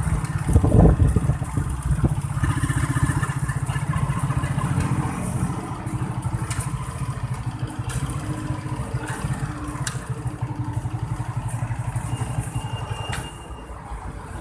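A vehicle engine runs with a rapid, even pulse, heard from on board the moving vehicle. There is a loud bump about a second in, and the engine gets quieter near the end.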